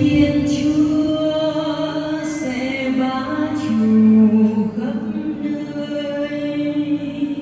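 Choir singing sacred music in long held notes, carried over the church's loudspeaker system and echoing in a large stone nave.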